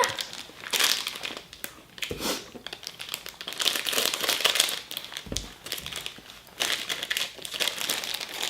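Crinkling of a Bocadin wafer bar's wrapper, or of its box, as it is handled, with a couple of soft thuds.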